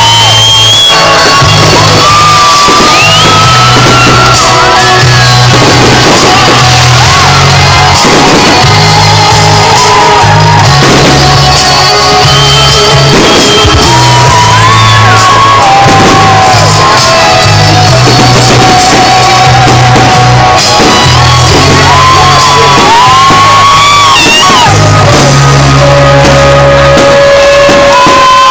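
Loud music with a heavy repeating bass line and a singing voice, with shouts and whoops from a crowd.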